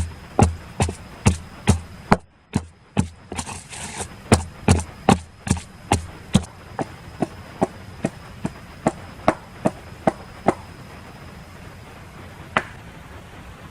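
Rhythmic chopping with a blade: sharp strokes at about two to three a second for some ten seconds, then a pause and one last stroke near the end.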